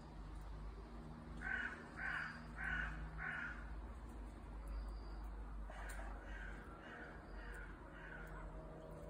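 A crow cawing four times in a row, evenly spaced, then a fainter run of about five more caws a few seconds later.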